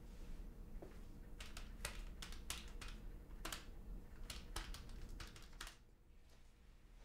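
Keys being tapped in an irregular run of about a dozen sharp clicks, stopping near the end.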